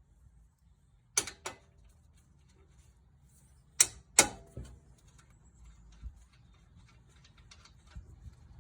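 Small sledgehammer striking the nut threaded flush on the end of the lower strut-to-knuckle bolt, driving the bolt out: four sharp metal clanks with a short ring, in two quick pairs, with light clicks between.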